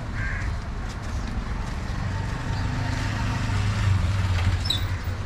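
A motor vehicle's engine running with a steady low hum, growing louder about three seconds in.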